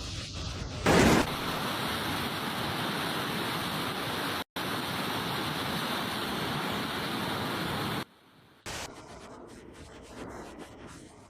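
Rushing floodwater, a steady noisy rush, with a brief louder burst about a second in. The sound breaks off abruptly twice, near the middle and again near the end, where a quieter, different outdoor noise takes over.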